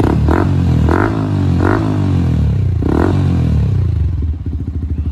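Yamaha R15M's single-cylinder engine breathing through an aftermarket Akrapovic silencer, idling and blipped four times, each rev rising and falling quickly, then settling back to a steady idle near the end.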